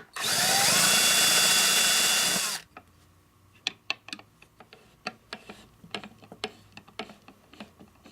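Power drill running for about two and a half seconds, speeding up as it starts and then stopping suddenly, while fastening the jig's sacrificial fence. Light clicks and taps of handling follow.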